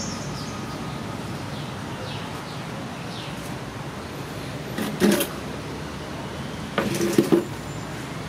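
Steady outdoor background noise with a few faint bird chirps, broken by two short, loud knocking noises, one about five seconds in and a rattling cluster of three about seven seconds in.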